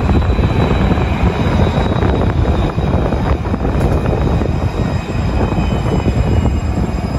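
Modern electric tram passing close by, a steady low rumble of wheels on rail with a faint high whine.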